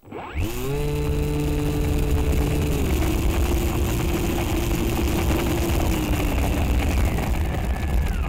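FPV drone's electric motor and propeller spooling up from a stop in about half a second, then running at a steady high buzz. Its pitch eases down slightly about three seconds in and starts to drop near the end as the throttle comes back.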